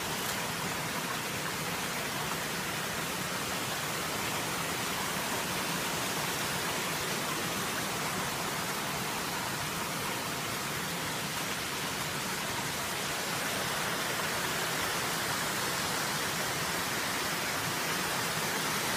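Steady, even rush of running water from a stream, with no breaks or changes.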